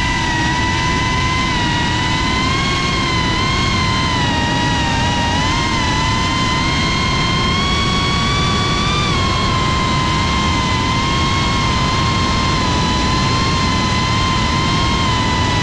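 FPV quadcopter's electric motors and propellers whining at a steady high pitch that wavers slightly with the throttle, over a low rushing noise of air and prop wash.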